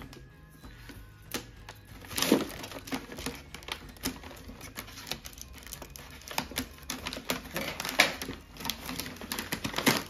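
Paper gift bag and tissue paper rustling and crinkling as they are handled and cut with scissors: a rapid run of crackles and snips, with louder crackles about two seconds in and again near eight seconds.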